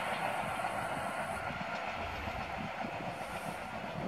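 SM42 diesel-electric shunting locomotive hauling a track-maintenance work train past with a steady running noise.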